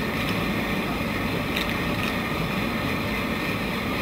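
Floating jet aerator running: the electric motor driving the submerged shaft while the jet churns the water, making a steady, even rushing noise.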